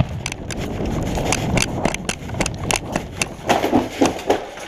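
Running footsteps on pavement and debris: a quick, irregular run of sharp steps, with a denser scuffing patch near the end.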